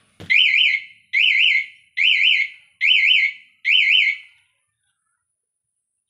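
Remote-control security alarm siren sounding five loud electronic warbles in a row, each swooping up and down in pitch, then stopping about four and a half seconds in.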